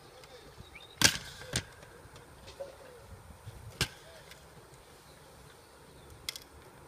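A few sharp clicks and knocks over a faint steady background: a loud one about a second in, a second half a second later, another near four seconds and a faint double click near the end.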